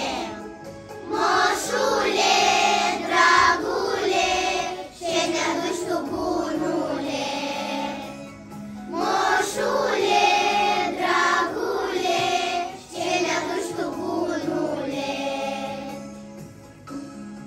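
A group of young children singing a Romanian winter song together in chorus, over an instrumental backing. The singing drops away near the end.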